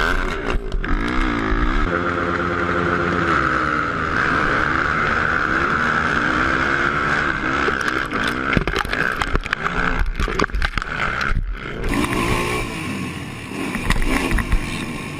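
Racing ATV (sport quad) engine revving hard, its pitch rising and falling as it runs over a dirt track, heard from an on-board camera. About twelve seconds in, the sound cuts abruptly to another quad's engine.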